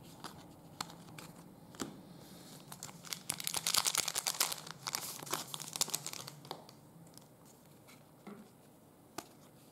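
Crinkling and tearing of a plastic-foil trading card pack wrapper as it is opened, loudest in a dense burst from about three to six and a half seconds in, with light clicks of cards being handled around it.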